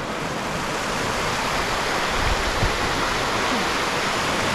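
A fast river rushing steadily over rocks, a full, even roar of water, with a couple of brief low thumps about two and a half seconds in.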